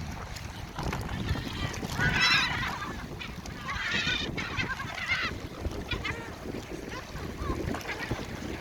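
Water birds calling: loud harsh calls about two, four and five seconds in, then a few fainter ones, over low wind rumble on the microphone.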